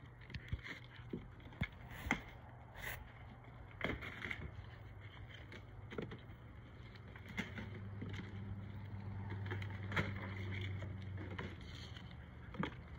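Sporadic cardboard crackles and rustles as a dog noses and tears into a box of kibble, with a low hum swelling for a few seconds midway.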